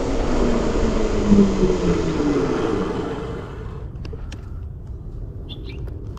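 Fat-tire electric bike slowing to a stop: wind rush and a hum from motor and tyres that falls in pitch, fading away about halfway through. A few light clicks follow.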